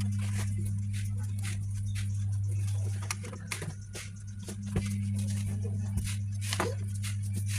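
A steady low hum with a weaker tone an octave above it, dipping briefly about halfway through, with scattered light clicks and taps over it.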